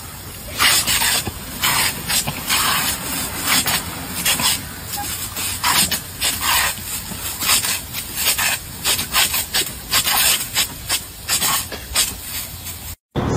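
Sprinkler jet of water spraying in a quick, uneven run of short spurts, several a second.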